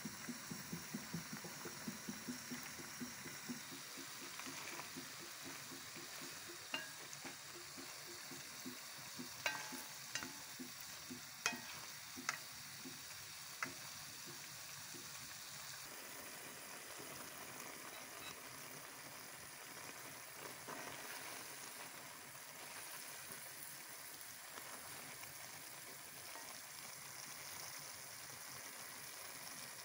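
Pot of pasta water boiling for the first few seconds, then chicken, mushrooms and peppers frying in a metal pan with a steady sizzle. A utensil clicks sharply against the pan about six times in the middle.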